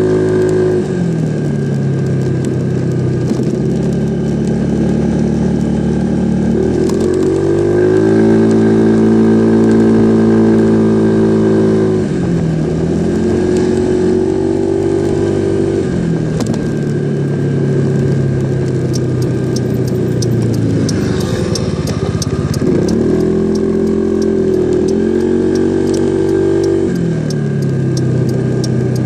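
Yamaha SMAX scooter's single-cylinder engine running, blipped up from idle three times, held a few seconds each time, and let fall back. It is recorded to show an abnormal noise (異音), with a thin steady whine and light ticking over the engine note.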